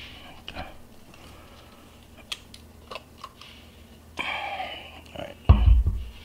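Handling of a Canon TX 35 mm SLR camera: scattered light clicks and rattles as it is turned over and its back opened, a brief rustle about four seconds in, then a heavy thump about five and a half seconds in as the camera is laid down on the wooden tabletop.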